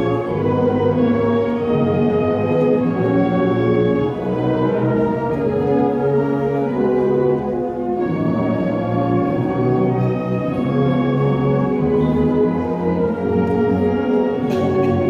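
Instrumental ensemble music, with layered chords held for seconds at a time.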